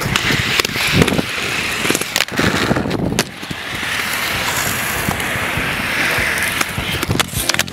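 Aggressive inline skate wheels rolling over concrete, a steady gritty rolling noise with scattered sharp clicks and knocks. The rolling breaks off briefly about three seconds in, then picks up again.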